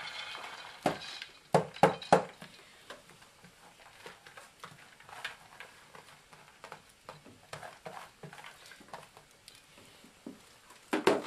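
Soaked beans poured from a plastic container into a cast-iron Dutch oven. A few sharp knocks come in the first couple of seconds, then a light, scattered patter of beans dropping onto the ham bone.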